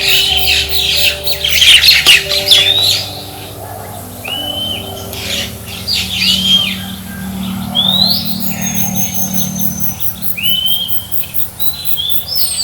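Several birds calling: a dense chatter of overlapping calls for the first few seconds, then separate short, sharp calls that rise and bend, coming every second or two.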